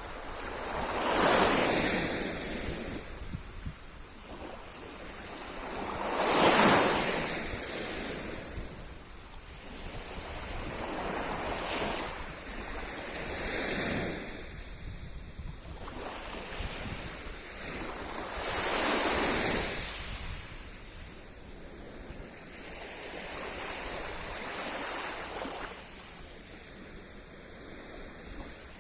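Sea surf: waves breaking and washing on the shore, coming in as swells of rushing noise every few seconds. The loudest is about six seconds in.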